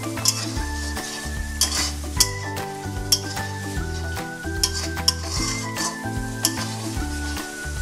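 Spatula stirring paneer curry in a metal kadai: scraping with sharp clicks against the pan while the gravy sizzles. Soft background music with sustained chords plays underneath.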